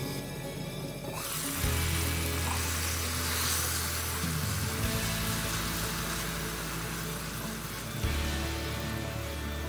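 Garlic and soy sauce sizzling and bubbling in a nonstick wok, the sizzle growing about a second in, over background music with a steady bass line.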